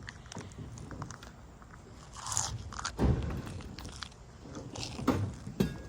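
A convertible top's folding frame being lowered onto its rack by hand: scattered clicks and creaks, a short scrape, and a heavy thump about three seconds in.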